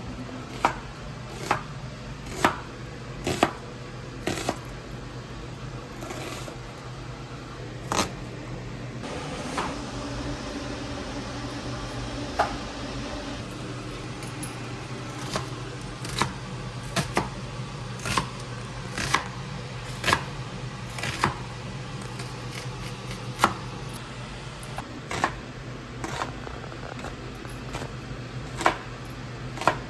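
A kitchen knife chopping vegetables on a cutting board: sharp, irregular knocks, sometimes single and sometimes in quick runs of two or three. A steady low hum runs underneath.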